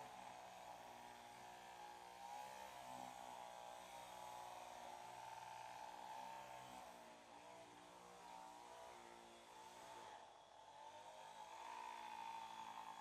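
Electric vibrating massage machine running with a steady buzz, its pitch wavering slightly.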